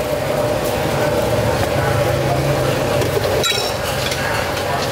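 Steady low hum and rush of a noodle stall's boiling steel broth pot, with a wire noodle strainer being worked in it and a single sharp metal clink about three and a half seconds in.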